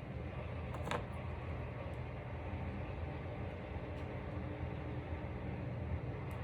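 Steady low background hum with a few faint clicks of hands handling an EEG electrode and its wire, one about a second in and another near the end.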